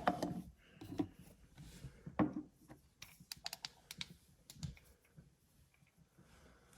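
Light, irregular clicks and knocks of cups being picked up and set down.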